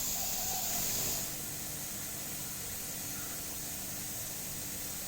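Steady high-pitched hiss, a little quieter from about a second in.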